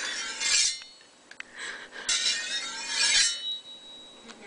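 A metal blade being sharpened: several long scraping strokes of steel drawn along steel, with a faint metallic ring, like a meat cleaver on a sharpening steel.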